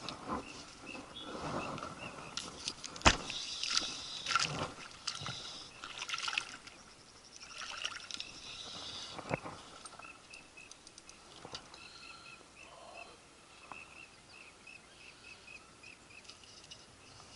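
Close-up handling noise from a spinning rod and reel: irregular clicks, knocks and rustling, loudest with a sharp knock about three seconds in. From about ten seconds in, a steady series of short high chirps runs in the background, a few each second.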